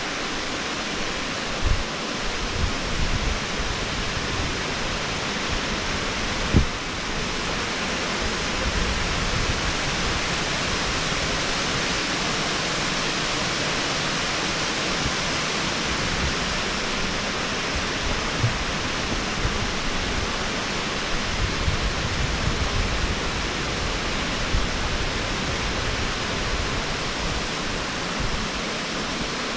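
Steady rush of water pouring over a wide, low rock-ledge cascade on Taughannock Creek. A few brief low bumps stand out, the loudest about six and a half seconds in.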